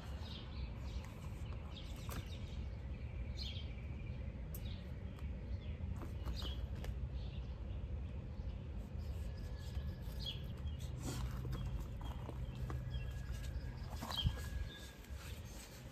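Scattered light scrapes and clicks of a metal ladder mesh panel being handled and pushed down into mulched soil, over a low steady outdoor rumble.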